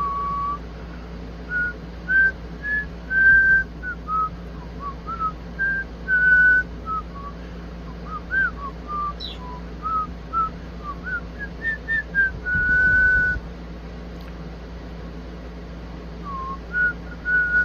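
A whistled tune: a run of short, clear notes, some gliding up or down and a few held longer, hopping about in pitch.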